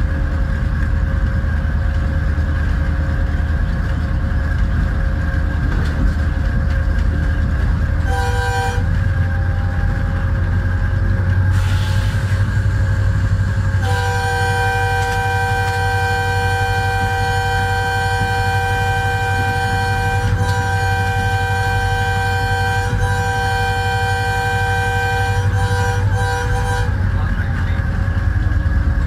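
HGMU-30 diesel locomotive's multi-tone air horn sounding in long sustained blasts over the steady rumble of the engine and wheels. One blast lasts about eight seconds and is followed by a short toot. After a pause of about five seconds with a brief hiss, a second long blast of about thirteen seconds breaks off briefly twice near its end.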